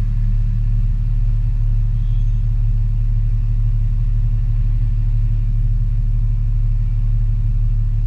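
Steady low rumble of a car driving at moderate speed, heard from inside the cabin: engine and road noise with no sudden events.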